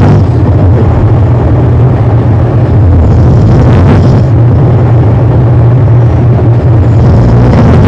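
A man snoring, heavily distorted and bass-boosted into a loud, constant low drone, with a rasping breath swelling twice, about four seconds apart.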